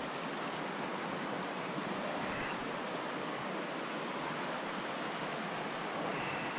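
Steady rush of a small mountain stream's running water.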